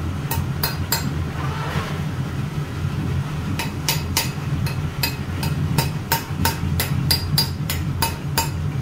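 Light metal-on-metal taps, each ringing briefly, over a steady low hum. Three taps come near the start, then a pause, then a steady run of about three taps a second from about three and a half seconds in.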